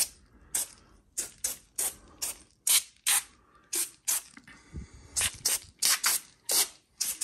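Aerosol can of active-foam upholstery cleaner spraying in many short hisses in quick succession, about three a second, as small dabs of foam are put on individual stains.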